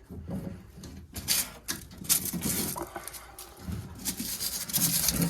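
Irregular knocks, rattles and scraping of hands and tools working on the open furnace cabinet during a draft inducer replacement.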